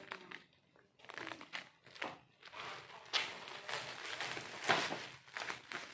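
Plastic packaging and bubble wrap crinkling and rustling as it is handled, in irregular crackles, loudest about three seconds and again nearly five seconds in.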